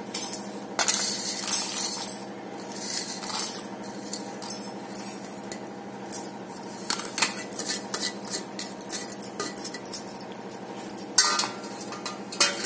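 Whole spices, dried red chillies and a tomato tipped by hand from a stainless steel plate into a steel mixer-grinder jar. Many quick clinks and taps of steel on steel, over a steady low hum.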